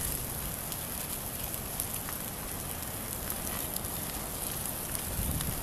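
Open log fire burning and crackling, with scattered small pops and snaps.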